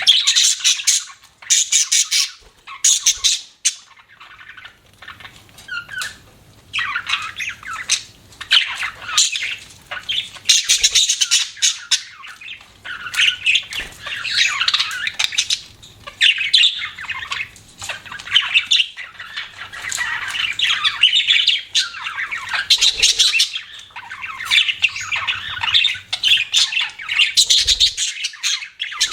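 Budgerigars chirping and chattering in quick, busy bursts with squawks mixed in, at times several birds at once.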